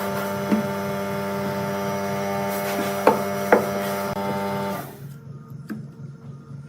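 Steady electric motor hum with a few sharp clicks, cutting off about five seconds in.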